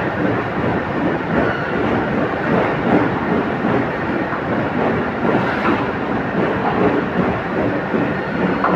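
Heavy machinery running, a steady loud rumble with continuous irregular clatter.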